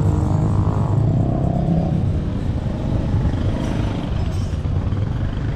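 Road traffic: motor vehicle engines running by with a steady low rumble, one engine's pitch briefly audible in the first couple of seconds.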